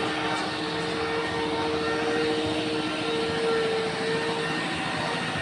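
Steady machine drone with a constant whine that holds one pitch throughout.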